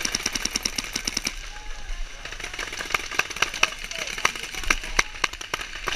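A paintball marker firing a rapid string of shots, about ten a second, for just over a second, then scattered single shots popping around the field.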